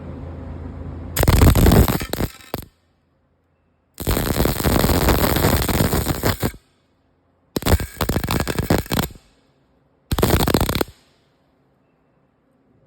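MIG welding arc crackling and sputtering in four separate bursts, each a second or two long and the last one short, as short weld runs are laid.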